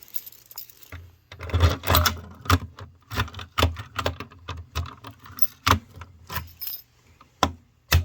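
Irregular jangling clatter of clinks and knocks, with low thuds, from something handled close to the microphone. It starts about a second in and ends with two sharp knocks near the end.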